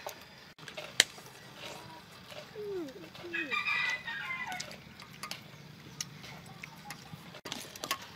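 A rooster crowing about three and a half seconds in, with a single sharp click about a second in.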